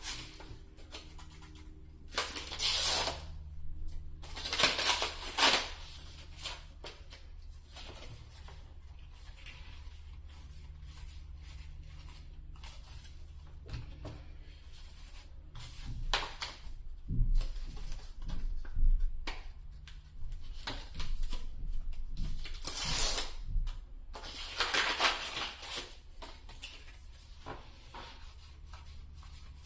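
Yu-Gi-Oh foil booster packs being torn open and handled, crinkling in several short bursts, with cards clicking and sliding in between over a steady low hum.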